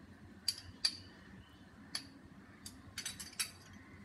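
A few light metallic clinks and taps of kitchen utensils against stainless steel vessels while ingredients are added to a pressure cooker, with several close together about three seconds in.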